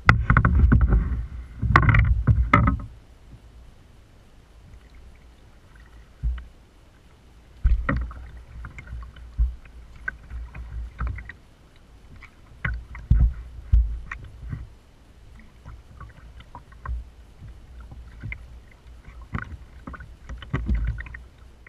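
Kayak paddling: paddle strokes splashing in the water, with irregular knocks and thumps. The strokes are heaviest in the first three seconds, then come in scattered bursts.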